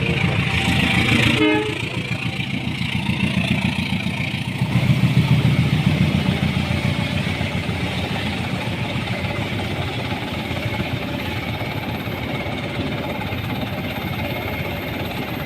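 A bus's multi-tone 'telolet' horn sounding briefly and cutting off about a second and a half in, followed by a heavy diesel engine's low pulsing rumble that swells for a couple of seconds and then runs steadily.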